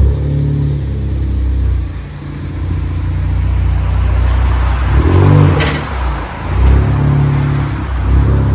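Ford Focus ST's turbocharged 2.0-litre four-cylinder engine revved in repeated blips, dropping back toward idle between them. It exhausts through a Flow FX in place of the resonator, a muffler delete and a Y-pipe to dual tips.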